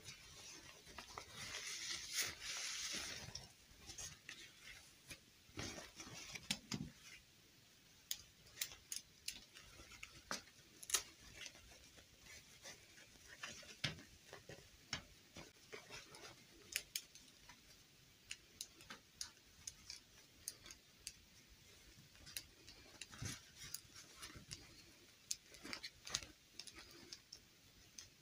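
Hands dressing a plastic fashion doll: a rustle of the fabric dress about one to three seconds in, then scattered small clicks and taps as the plastic doll and dress are handled.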